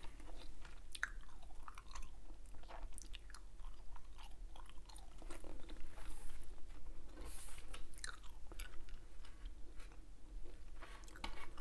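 Hubba Bubba bubble gum being chewed with the mouth closed, close to the microphone: irregular soft clicks of the gum.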